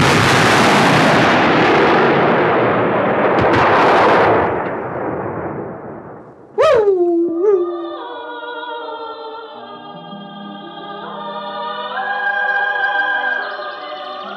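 A dynamite explosion: a loud blast of rumbling noise with scattering debris that dies away over about six seconds. Then two short sounds falling in pitch, and orchestral film music.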